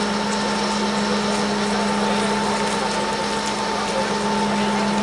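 DR class 120 "Taigatrommel" diesel locomotive's two-stroke V12 diesel engine running hard and loud while the locomotive is held on its brakes, a steady deep drone with a strong even hum under it.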